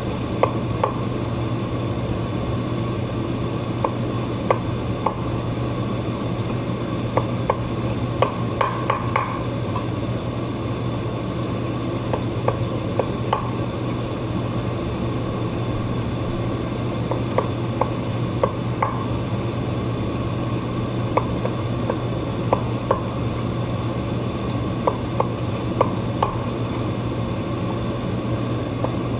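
Nakiri knife blade cutting vegetables and tapping the wooden cutting board in short, irregular clicks, some in quick clusters, over a steady low hum.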